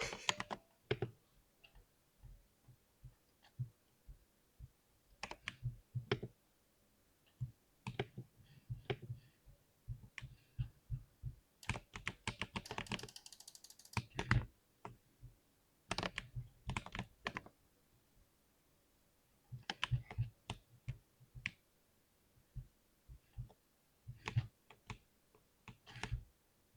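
Typing on a compact 60% computer keyboard: irregular runs of key clicks with short pauses, a fast dense run a little before the middle and a brief quiet gap about two-thirds through.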